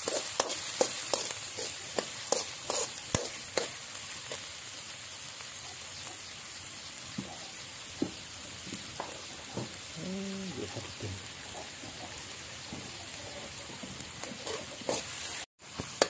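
Chopped aromatics sizzling in a hot steel wok, with a metal spatula scraping and clinking against the pan, several clinks in the first few seconds and fewer after.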